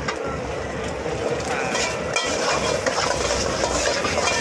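Eggs sizzling in hot oil in a wok, with a metal spatula scraping and clinking against the pan.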